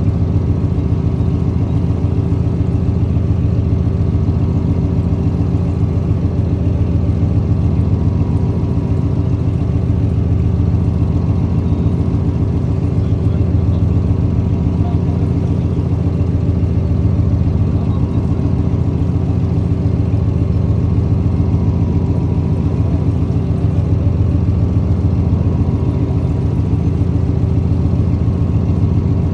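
A boat's engine running steadily: a low, even drone with a fast fine pulse and a constant hum above it.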